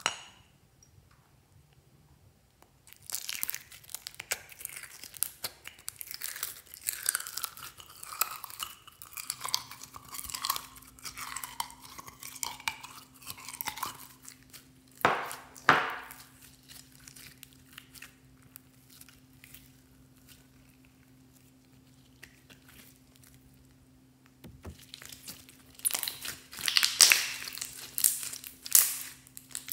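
Gold slime poured from a container onto white fluffy slime, with sticky crackling and popping for about ten seconds, then a sharp loud sound halfway through. Near the end, hands squeeze and knead the gold slime in loud crackling squishes.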